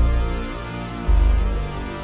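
Slow electronic R&B song: deep synth bass notes, a fresh one hitting about a second in, under a wavering high tone.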